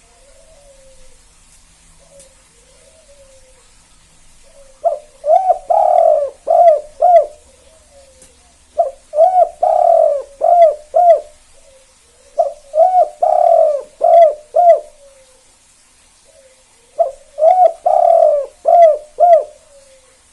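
Spotted dove (tekukur) cooing its 'kuk 2' song: four loud phrases about four seconds apart, each a couple of short coos, a long drawn coo and two short closing 'kuk' notes. Softer coos sound between the phrases.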